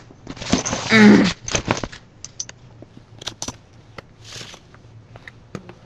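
A short breathy voice sound, like a sigh or stifled laugh, about a second in. Then scattered light clicks and taps of small objects being handled close to the microphone.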